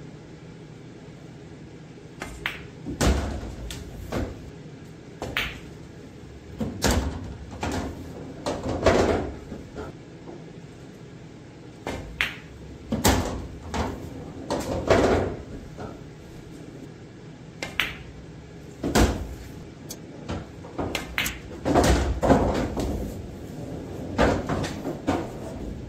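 Pool balls during a nine-ball practice run on a coin-operated bar table: the sharp click of the cue tip on the cue ball and the clack of ball on ball, each followed by dull thuds as pocketed balls drop and roll inside the table. These come in clusters every few seconds.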